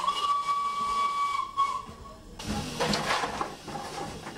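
Flying Scotsman's steam whistle blowing one long, steady note over the hiss of steam, cutting off about two seconds in. After that comes a stretch of steam hissing with a few knocks.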